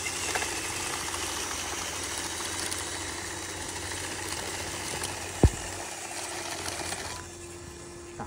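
Radio-controlled model bulldozer's motor and gearbox running steadily as it crawls on its tracks through dirt, stopping about seven seconds in. A single sharp thump about five and a half seconds in.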